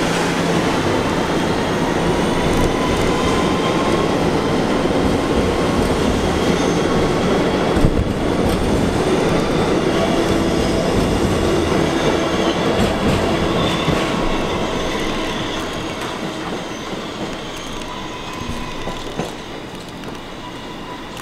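Kawasaki R211A subway train running past close by, its steel wheels squealing thinly on the rails over a steady rumble and clatter. The sound fades from about halfway through as the train pulls away.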